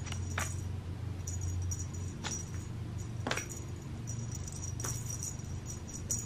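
Light metallic jingling that comes and goes, with a handful of sharp clicks, from a cat toy being waved about during play, over a steady low hum.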